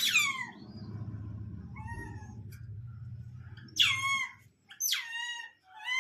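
Monkey calls: a high squeal that rises then falls at the start, then three short high calls a second apart near the end, each dropping in pitch. A low steady rumble runs under the first four seconds.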